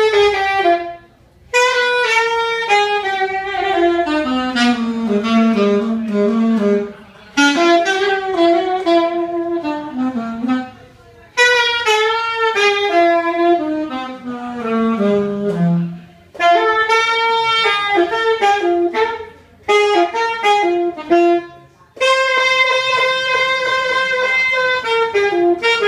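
Solo saxophone playing slow melodic phrases separated by short breaks for breath, several of them falling from a middle note to a low one, with a long held note near the end.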